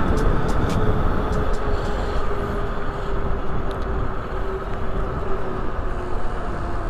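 Heavy wind rush on the microphone of a fast-moving electric bike, over a steady electric-motor whine that slowly drops in pitch.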